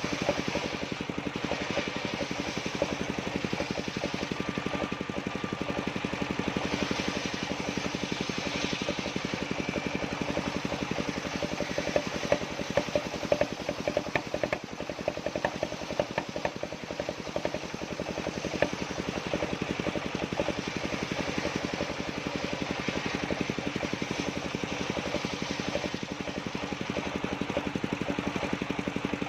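Engine of a circular sawmill rig running steadily with a fast, even pulse. A cluster of sharper clicks comes through in the middle.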